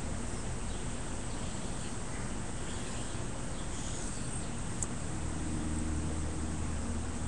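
Steady outdoor background hiss and low hum, swelling slightly in the second half, with a few faint high chirps from insects or birds.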